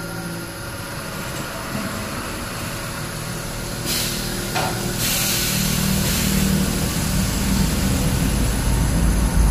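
CNC lathe running, its spindle and chuck turning, with a steady machine hum that grows deeper and stronger in the second half. A brief hiss comes about four seconds in, and a longer hiss follows about a second later.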